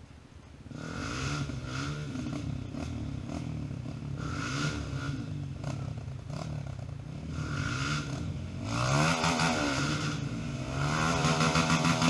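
Off-road motorcycle engine revving up and down repeatedly, with some clattering. It comes in loud about a second in, and the pitch climbs highest twice in the second half.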